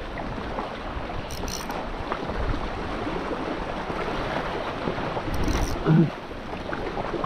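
Sea waves washing over shoreline rocks, with wind on the microphone. A brief low sound about six seconds in is the loudest moment.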